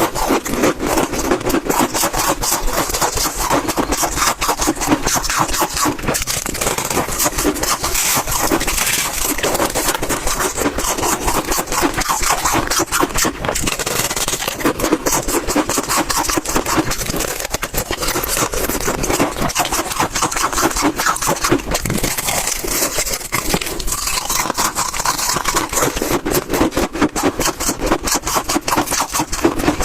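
Close-miked crunching of chunks of freezer frost being bitten and chewed: a dense, unbroken run of crisp crackles and squeaks.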